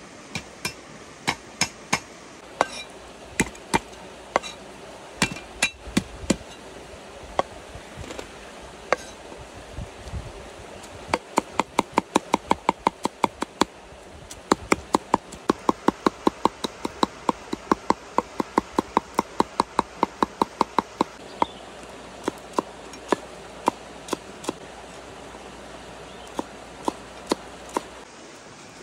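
Cleaver chopping on a round wooden chopping board: scattered knocks at first, then long runs of quick, even chops about five a second through the middle, thinning back to scattered knocks near the end.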